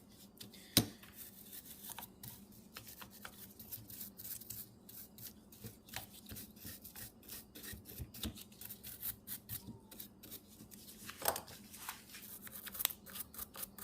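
A napkin scrubbing the inside of a Tecumseh carburetor's float bowl to remove the buildup line left by the float: quick, irregular rubbing strokes, with a sharp knock about a second in.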